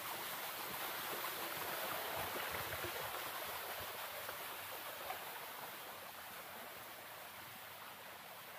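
Flowing river water: a steady rushing hiss that swells a little and then slowly fades.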